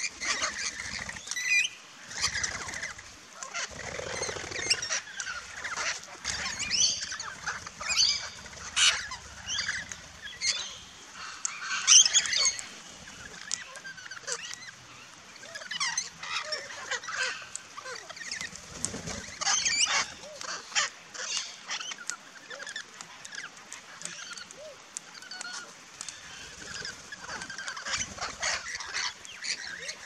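A feeding flock of parrots, mostly rainbow lorikeets with crimson rosellas and king parrots among them, calling over and over in short shrill calls and chatter. The loudest call comes about twelve seconds in.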